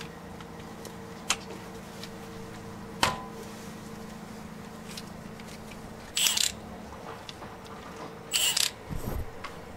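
Socket wrench being worked at the back of a wheel hub on its mounting bolts: two sharp metal clicks, then two short bursts of ratchet clicking about six and eight seconds in, and a dull knock near the end, over a steady low hum.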